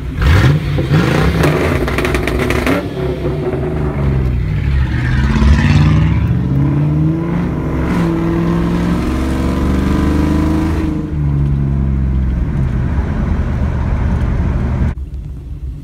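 The muffler-deleted 5.7 L V8 of a Chevrolet Suburban revving hard and pulling away, loud and raspy with some clatter. Then a car engine accelerating through the gears, heard from inside the cabin, its pitch climbing and falling back with each shift before settling to a steady cruise.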